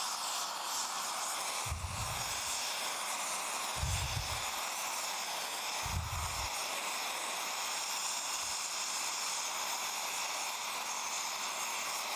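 Oxy-fuel torch flame burning with a steady, even hiss as it heats a cast iron plate for bronze brazing. Three brief low rumbles come in the first half.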